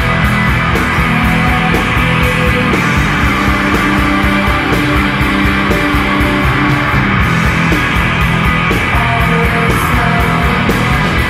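Shoegaze rock song playing: guitars over a steady drum beat.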